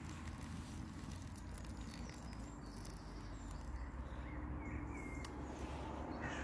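Quiet outdoor background: a steady low rumble of distant traffic with a few faint bird chirps about four to five seconds in, while hot water is poured from a pot into a collapsible silicone cup over the first few seconds.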